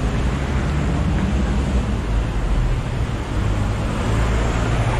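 Steady road traffic noise on a busy city street: the low hum of cars and buses running, with no single event standing out.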